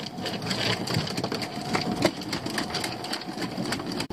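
Small fishing boat's engine or pot hauler running steadily while the rope to the next lobster pot is hauled in over the side, with many irregular clicks and knocks.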